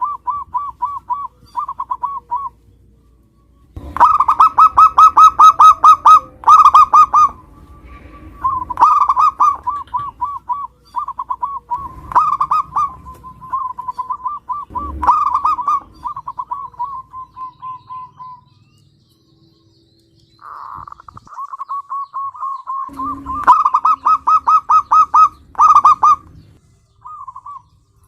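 Zebra dove (perkutut) cooing: phrase after phrase of fast rolling notes, with short pauses between songs. The loudest stretches come about four to seven seconds in and again near the end.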